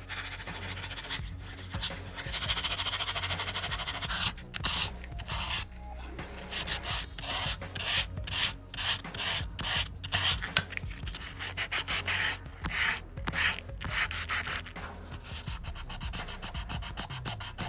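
Hand sanding a small steel knife blade with folded sandpaper: quick back-and-forth rasping strokes of abrasive paper on steel. A dense, rapid run of strokes comes a couple of seconds in, then separate strokes a few per second. This is sanding up through the grits to take out scratches before a mirror polish.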